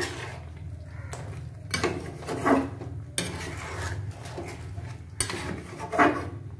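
Metal spatula scraping and clinking against a non-stick wok while chicken curry is stirred, in separate strokes, the louder ones about two seconds in and near the end, over a steady low hum.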